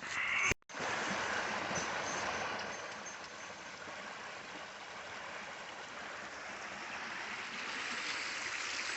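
Creek water rushing in a steady, even wash, starting just after a brief cut in the sound under a second in.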